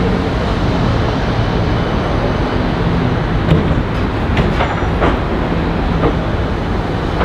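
Siemens Combino D2-class low-floor tram approaching along street track, its running gear rumbling steadily with a faint low hum, over road traffic noise. A few sharp clicks come about halfway through.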